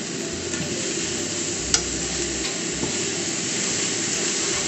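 Thin strips of konnyaku sizzling on high heat in a frying pan with soy sauce and mirin, stirred with chopsticks. One sharp click a little under two seconds in.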